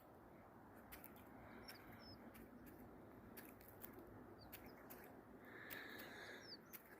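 Faint birds chirping: a few short, high chirps over soft scattered clicks, with one slightly longer faint call about six seconds in.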